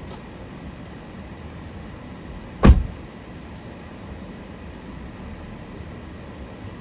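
A car door slammed shut once, a single heavy thump about two and a half seconds in, over the steady hum of the car running at a stop.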